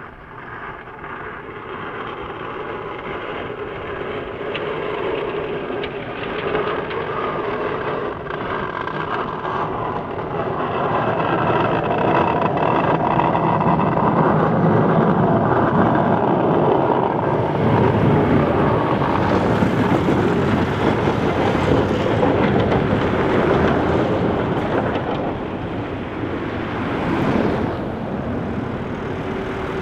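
Volvo FH13 540 8x4 plow truck's 13-litre straight-six diesel running as the truck approaches and passes, with the rush of the front plow blade pushing snow. It grows steadily louder to a peak a little past halfway, then fades, and a van's tyres hiss past on the slushy road near the end.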